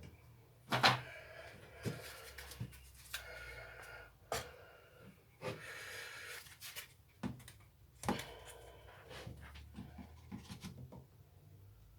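Clicks and knocks of small strimmer parts being handled and pushed back into place, the loudest about a second in, with soft breathing sounds between them.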